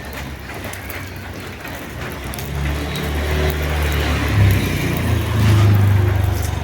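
A motor vehicle passing on a wet road: a low engine hum with tyre hiss that grows louder, is loudest around five to six seconds in, then begins to fade.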